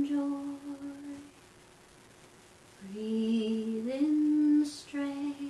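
A woman's voice singing long, wordless held notes in a slow melody, with a pause of about a second and a half in the middle. The second phrase starts low and steps up to a higher held note.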